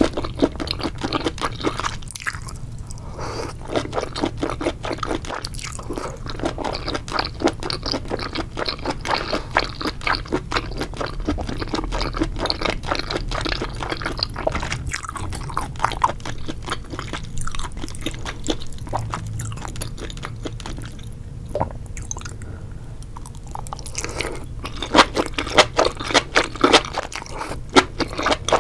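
Mukbang eating sounds: chewing octopus tentacles and enoki mushrooms in spicy sauce, a dense run of wet, squishy mouth clicks, with louder bites near the end.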